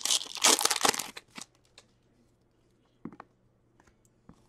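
Trading card pack's wrapper torn open and crinkling for about the first second, then soft flicks and slides of cards being leafed through by hand.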